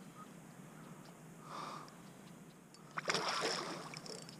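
A hooked fish thrashing at the surface right beside a kayak: a faint splash about a second and a half in, then a sudden louder burst of splashing about three seconds in that lasts about a second.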